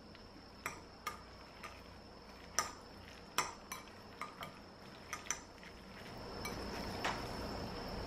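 Metal chopsticks clicking against a ceramic bowl while noodles in red chili sauce are stirred: about ten sharp clinks over the first five seconds, then a steadier rustle of the sauced noodles being tossed from about six seconds in.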